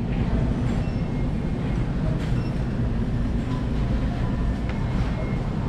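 Steady low rumble from a handheld action camera being carried on the move: movement and handling noise on its microphone, with faint background tones from the store.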